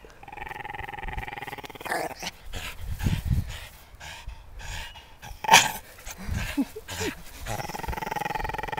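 A dog growling in rough, sustained spells while tugging hard on a rope toy, with scuffling in the middle and a single sharp, loud snap about five and a half seconds in.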